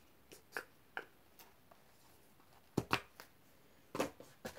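Scattered light clicks and taps from hands handling a small cosmetic bottle and its plastic packaging, with a few sharper clicks about three and four seconds in.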